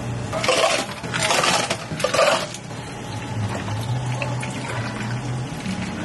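Water rushing in three short bursts of about half a second to a second each, over the first two and a half seconds. A quieter low steady hum follows.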